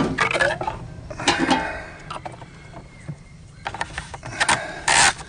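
Hard plastic cap and spout being handled and screwed onto a red RotopaX plastic fuel pack: irregular clicks, knocks and scrapes of plastic, with a louder scrape near the end.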